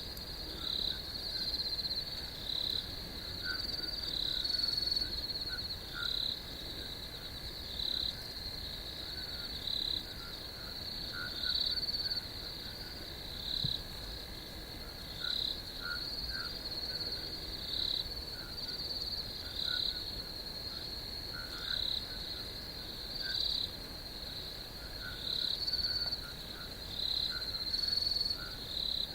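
Night-time chorus of insects and frogs: a steady high-pitched trilling that swells in repeating pulses about every second or two, with short lower calls scattered through it.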